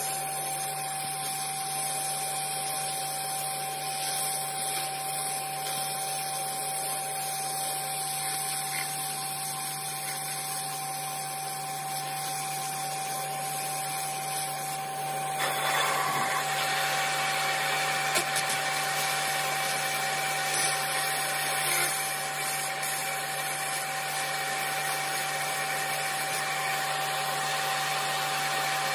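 Laser cleaning machine running while it burns carbon deposits off an engine cylinder head's valves: a steady hum with a constant high-pitched tone. From about halfway it turns louder and hissier, with a few sharp ticks.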